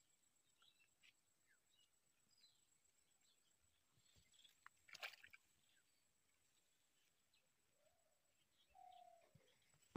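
Near silence: faint outdoor quiet with scattered faint bird chirps and a single soft click about five seconds in.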